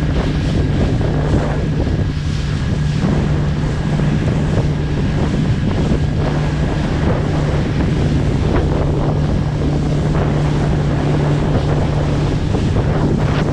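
A small fishing boat's engine runs at a steady pitch while the boat crosses a rough, wind-whipped sea. Heavy wind buffets the microphone, and waves splash irregularly against the boat.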